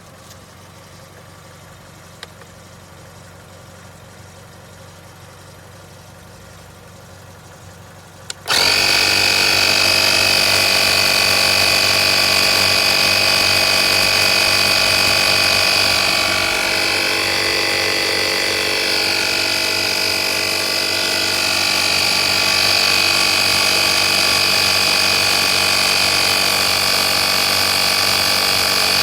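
Portable 12V air compressor switched on with a click about eight seconds in, then running loudly and steadily with a high-pitched whine; before it starts only a faint low hum is heard.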